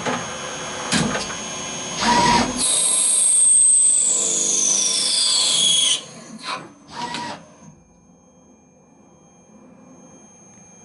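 CNC turning centre working a steel part: a couple of sharp knocks as the tooling moves, then a turning cut of about three seconds with a high whine that falls steadily in pitch. Two short knocks follow and the machine drops to a faint hum.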